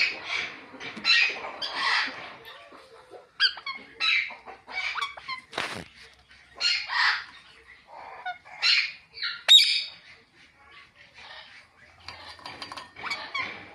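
Ringneck parakeet chirping and squawking in a run of short, irregular calls.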